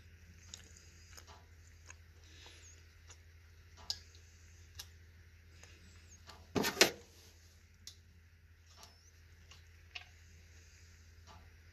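Small plastic clicks and taps of a Mitsubishi key fob being handled during a battery change, with a quick run of louder snaps about two-thirds of the way through, over a low steady hum.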